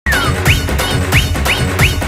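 Background music with a steady beat: low thumps about every half second, each paired with a short rising note.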